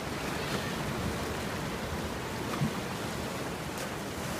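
Steady rushing background noise, with a brief faint low sound about two and a half seconds in.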